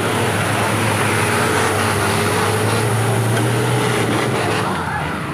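Modified off-road pickup's engine running hard at high revs, held steady under load as the truck climbs a steep mud bank with its wheels spinning. The engine eases off slightly near the end.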